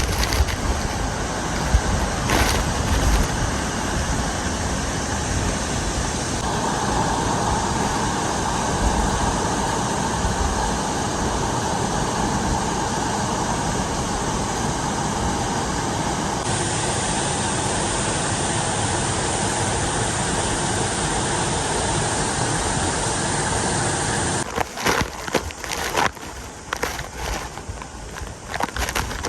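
Chōshi Falls waterfall pouring, a loud steady rush of falling water. In the last few seconds the sound turns uneven and choppy, dipping and swelling.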